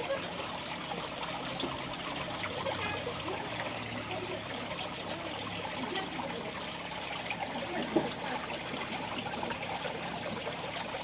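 Steady trickle of running water at a small trout pond, with one brief sharp click about eight seconds in.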